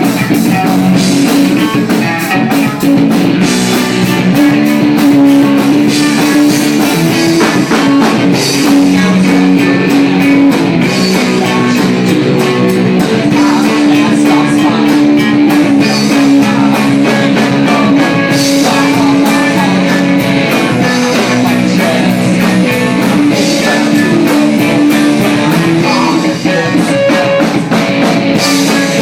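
Live rock band playing a song: guitar chords and a drum kit keeping a steady beat, loud throughout.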